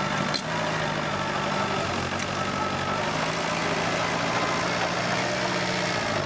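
Komatsu D21P bulldozer's diesel engine running steadily.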